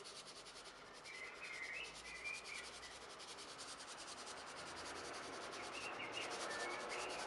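Faint steady outdoor background hiss, with a few faint, distant bird chirps about a second in and again near the end.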